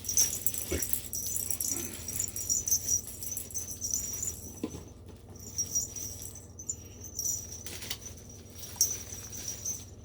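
Small cat toys jingling and rattling in quick, uneven bursts as a cat bats them around, with a small bell ringing.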